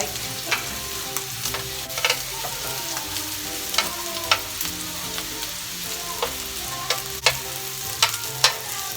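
Samgyupsal pork belly sizzling on a tabletop grill, a steady frying hiss with sharp clicks and taps scattered throughout.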